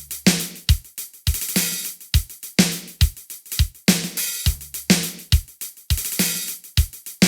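Drum beat: kick, snare and hi-hat hits repeating in a steady looping pattern.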